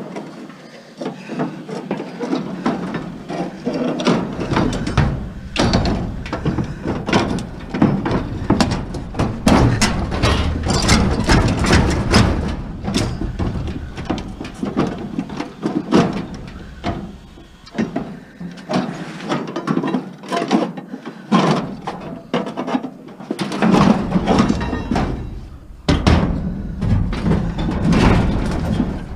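Metal banging, clanking and scraping: a stuck part is being pried and knocked loose from a scrap appliance with a bar. The knocks come in quick irregular runs.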